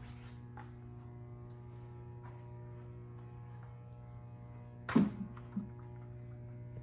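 Steady electrical mains hum, a low drone with several higher steady tones stacked above it. A short, sharp knock about five seconds in, with a smaller one just after, stands out above it.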